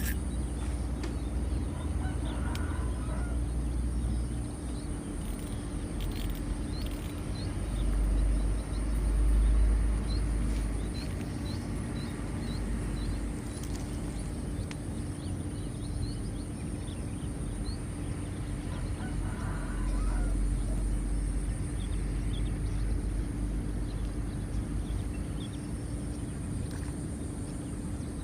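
Outdoor lakeside ambience: a steady high insect drone and a constant low hum. Low rumbles swell twice, and a string of faint bird chirps is heard. Two short calls stand out, one a couple of seconds in and one about two-thirds of the way through.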